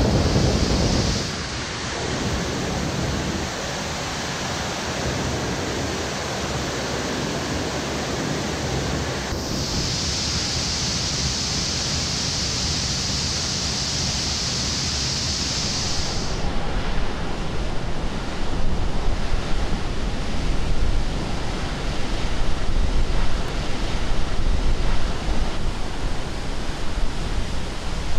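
Steady roaring rush of rocket-launch noise blended with the hiss of a water sound-suppression spray, standing in for a Titan LR-87 engine firing on a test stand. A brighter hiss sits on top for several seconds through the middle. After that the low rumble grows louder and rougher.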